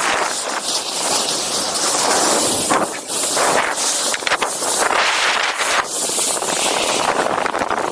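Snowboard sliding and carving over snow: a loud, continuous hiss that dips and swells every couple of seconds, mixed with wind on the microphone.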